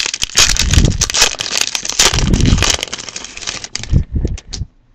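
A plastic trading-card pack wrapper being torn open and crinkled by hand: a dense crackling for nearly four seconds, then a few separate sharp crinkles before it stops.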